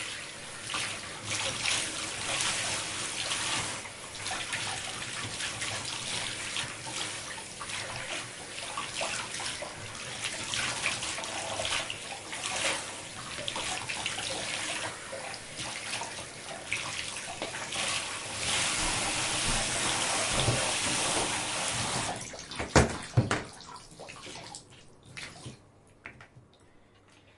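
Shower spray running onto hair and hands as hair is washed, splashing unevenly. About 22 seconds in the water cuts off, followed by a couple of sharp knocks and then faint drips and squelches that die away.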